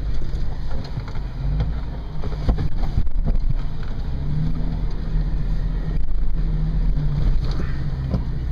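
Toyota FJ Cruiser's 4.0-litre V6 engine working at low speed off-road, heard from inside the cabin, its note rising and falling a little with the throttle. Scattered knocks and rattles from the vehicle jolting over rough ground.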